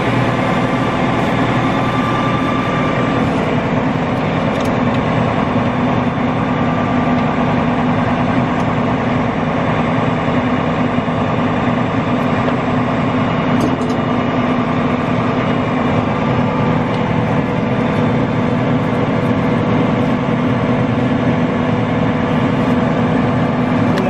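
CLAAS combine harvester running, heard up close at the side of the machine by its belt drives: a loud, steady mechanical drone with several held steady tones and no change in speed.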